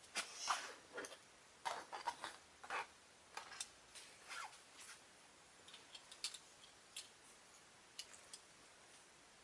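Faint clicks, ticks and light rattles of small hard plastic toy parts being handled and fitted, many in the first few seconds, then scattered single ticks.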